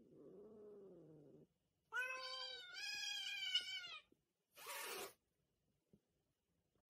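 Two domestic cats squabbling: a low drawn-out moan, then two long, wavering meows about two to four seconds in, and a short hiss about five seconds in.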